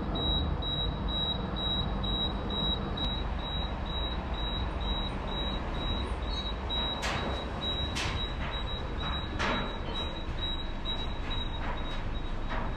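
Car lift's warning beeper sounding a short high beep about two to three times a second while the platform carries the car down, over a steady low rumble, with a few sharp clicks in the second half. The beeping stops near the end.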